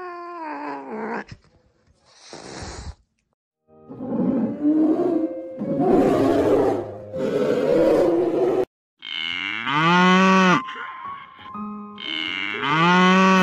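A cat's drawn-out, rising and falling yowl, then a polar bear growling for several seconds, then cattle mooing: two long moos near the end.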